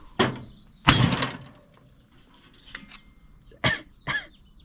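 A person coughing several times in short bursts, the loudest about a second in.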